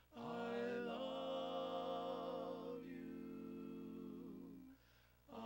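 Barbershop quartet of four men singing a cappella, holding one long sustained chord for about four and a half seconds. The chord breaks off near the end for a short breath before the next phrase begins.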